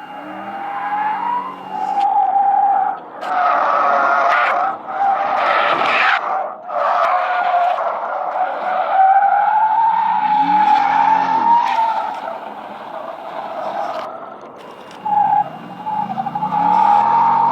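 A car drifting: its tyres squeal in a long, wavering tone, with the engine revving up and back down a couple of times, and the loudest, roughest skidding about three to six seconds in.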